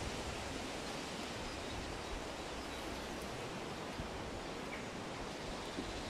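Wind rustling through shrub leaves and tall grasses: a steady, even hiss.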